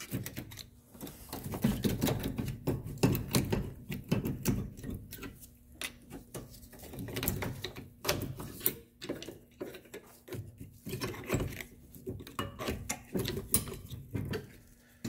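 2011 Honda CR-V's rusted rear brake caliper being pried with a flat screwdriver and rocked by hand on its bracket: irregular metal clicks, clinks and scraping as the stuck caliper resists coming free.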